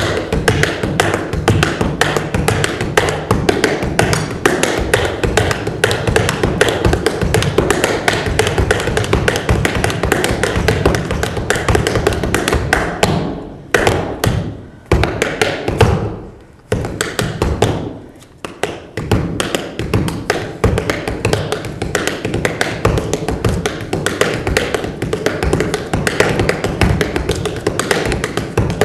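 Tap shoes striking a hard floor in fast, dense tap-dance footwork, many sharp taps a second, with a few brief breaks a little before halfway through.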